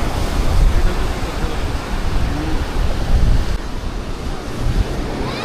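Sea surf washing onto the beach of the Bay of Bengal, a dense, steady hiss of breaking waves, with wind rumbling on the microphone. The high hiss thins out about two thirds of the way in.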